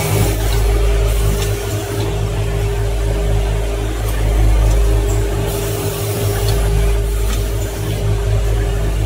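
Automatic breathing-filter assembly machine running: a steady low machine hum with a constant mid-pitched tone, and a few faint clicks from its pneumatic grippers and actuators.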